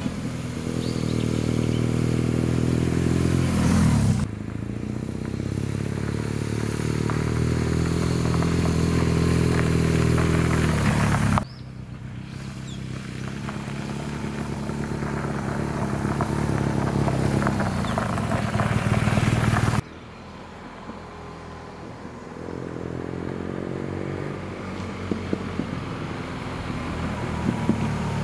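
Motorcycle engine running as the bike rides up toward the camera, growing louder as it nears, in four separate stretches that cut off abruptly. The pitch drops as it passes, about four seconds in.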